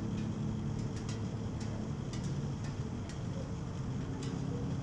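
A steady low hum with a scatter of faint, sharp ticks at irregular intervals, roughly one every half second.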